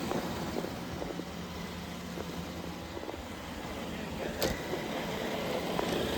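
Roomba robot vacuums running: a steady motor and brush whir, with one sharp click about four and a half seconds in.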